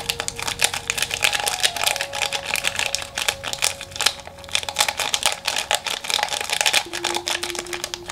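Foil sachet of pH buffer powder crinkling and rustling between the fingers as the powder is shaken and tapped out into a plastic cup, a dense run of quick crackles. Faint background music notes sound underneath.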